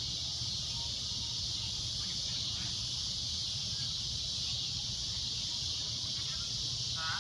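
Cicadas droning: a steady, shrill, unbroken buzz. Near the end a short run of rapid chirps cuts in briefly.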